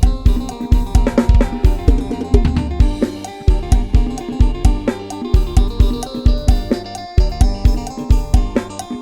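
Isan lam-sing style 'lai hae' groove on a sampled drum kit and bass: a steady kick and snare beat with hi-hat and cymbals, a busier drum fill in the first few seconds, and a sustained melodic line over it.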